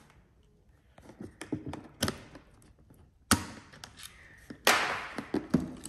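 Clicks and knocks from handling a polymer Roni pistol-carbine conversion kit while a retaining pin is pushed out with a small metal tool. A few light taps come first, then sharp clicks about halfway through and near the end, the last followed by a short scrape.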